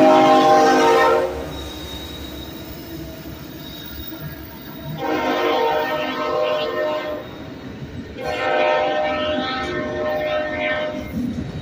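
Union Pacific freight locomotive air horn sounding as the train passes: a blast that cuts off about a second in, then two more long blasts, the last ending shortly before the end. A steady rumble of the passing locomotives and railcars runs underneath.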